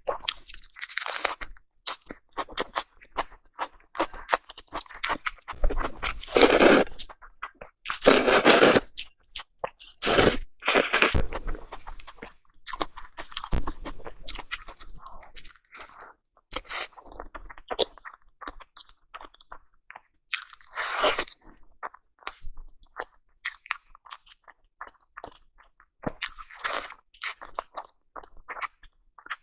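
Close-miked chewing and biting of salmon sushi: a steady run of small wet mouth clicks, with louder bursts of chewing several times.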